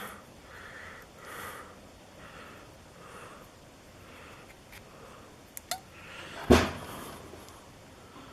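A shim being worked into a lock cylinder to release the core: a few small metallic clicks and one louder knock about six and a half seconds in, over soft breathing close to the microphone.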